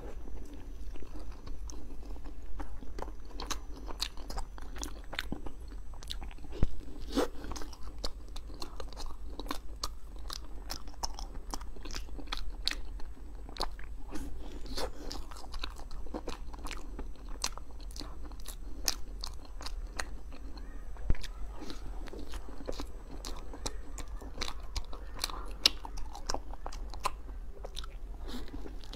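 Close-miked mouth sounds of biting and chewing a soft cream-filled mochi cake: a dense, irregular run of small wet clicks and smacks, over a steady low hum.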